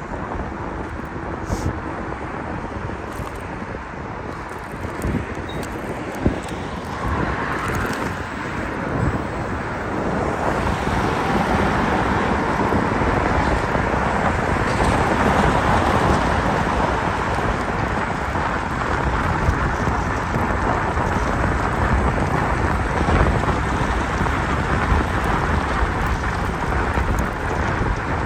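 Wind buffeting the microphone, mixed with road and tyre rumble, while riding a Dualtron Victor electric scooter along a road. The rumble grows louder about ten seconds in and stays there.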